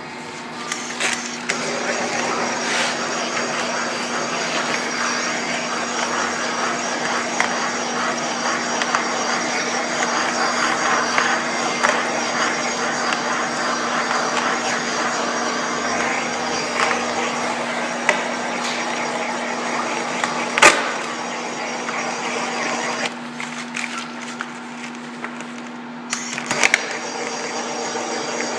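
Handheld propane torch burning with a steady rushing hiss as it is swept along a car's vinyl-wrapped rocker panel to warm the vinyl. The hiss falls away for about three seconds after the twenty-second mark, then returns. There are two sharp clicks, about 20 s and 27 s in.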